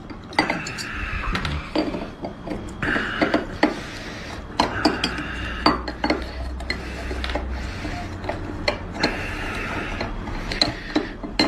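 Repeated clinks and taps of a Turkish tea glass and its saucer as sugar cubes are dropped in one after another, with short scraping sounds in between.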